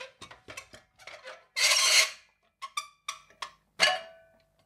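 Sheet-metal gear tray of a metal-halide lamp fixture sliding out of its steel housing: a run of light clicks and knocks, a longer metal scrape about a second and a half in, and a clank near the end that rings briefly.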